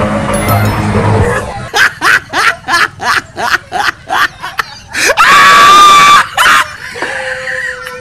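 Background music ends about a second and a half in. A run of short snickering laughs follows, about three a second, and then a loud, wavering scream that lasts over a second.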